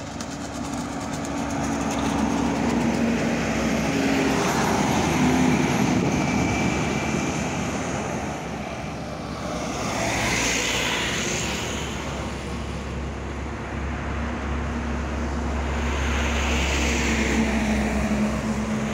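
Heavy diesel trucks, among them an Isuzu container truck, driving past and pulling up a bridge ramp: a steady engine drone with tyre rumble that swells several times as each truck goes by.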